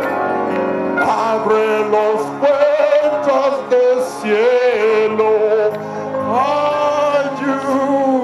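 Gospel music with a man singing held, sliding notes over instrumental backing.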